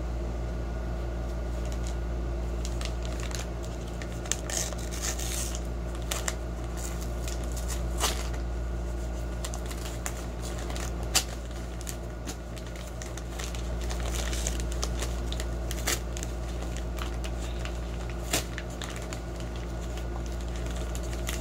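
CDs and their plastic cases and wrapping being handled: scattered sharp clicks and short crinkling over a steady low hum.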